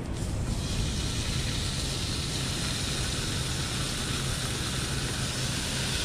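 Raw bacon rashers sizzling as they are laid into a hot frying pan on a portable butane stove: a steady hiss that starts about half a second in and holds, over a low steady rumble.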